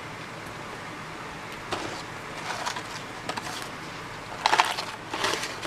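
Electric fan running with a steady hiss, and from about two seconds in a few short crackly, crunchy bursts of eating noise from the meal.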